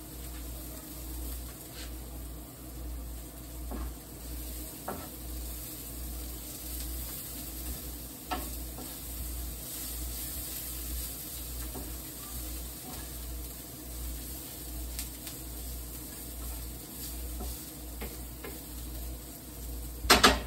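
Chopped onions and green peppers sizzling in a frying pan, with a wooden spatula stirring and scraping now and then. Two sharp knocks come near the end.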